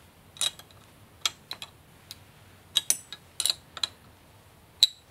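Irregular sharp clicks and taps of small hardware, about a dozen, as nuts are fitted and tightened onto the bolts of a drag-chain bracket. The loudest click comes near the end.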